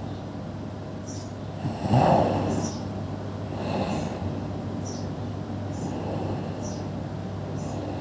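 A person snoring, with one loud snort about two seconds in and a softer snore near four seconds.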